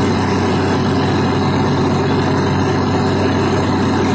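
Truck-mounted borewell drilling rig running steadily at a constant, loud level with a deep even hum, its engine and drilling gear under load as it bores.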